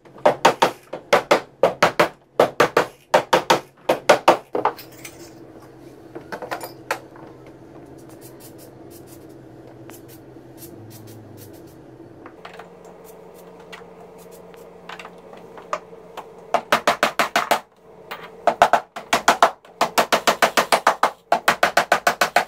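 Rubber mallet tapping a plastic cart shelf down onto its aluminium posts in quick runs of blows. A burst of taps lasts about four seconds, then there is a pause, then another run of taps near the end.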